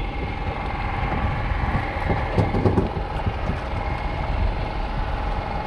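Steady drone of an engine running aboard a small fishing boat: a low rumble with a constant whine on top.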